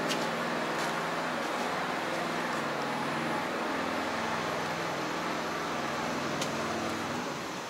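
Tractor diesel engine idling steadily, with a low even hum. It fades out about seven seconds in.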